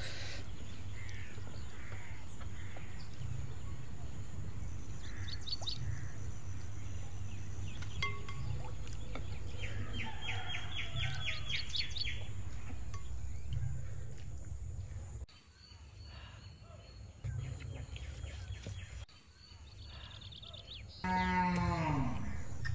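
Rural outdoor ambience of small birds chirping in short rapid trills over a low steady rumble that drops away about two-thirds of the way through. Near the end a cow gives one loud moo that falls in pitch.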